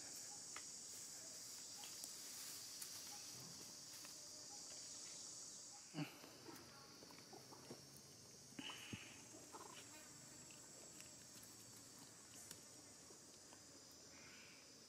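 Faint, steady high-pitched drone of insects, which drops in level about six seconds in. A few soft clicks and taps fall near the middle; the sharpest comes about six seconds in.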